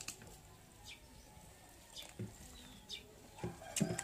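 Close-up eating sounds of rice and chicken eaten by hand: soft mouth clicks and smacks while chewing, with a few low knocks around the middle and near the end and one faint, short high glide.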